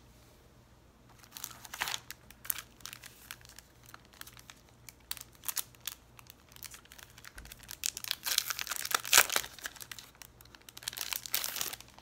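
Clear plastic packaging crinkling and tearing as a wrapped paper pad is handled and unwrapped, in irregular crackly bursts that are busiest about eight to nine seconds in and again near the end.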